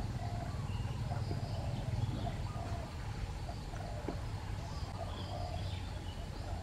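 Outdoor ambience: scattered short, faint bird chirps over a steady low rumble.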